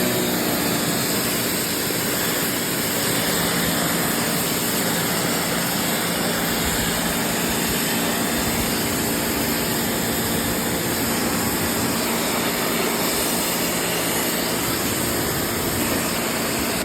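Kärcher K1700 electric pressure washer running with its trigger held: a steady motor hum under the hiss of the water spray, cutting off suddenly at the end.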